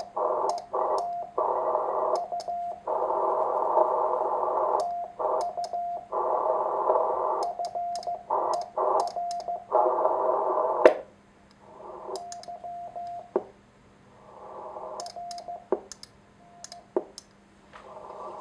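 Morse code keyed on a homebuilt 1Watter QRP transceiver with a paddle: a sidetone near 700 Hz under heavy band-limited receiver hiss that cuts in and out with the keying, with light paddle clicks and a few sharp pops. About 11 seconds in the hiss falls away and the keying goes on more quietly.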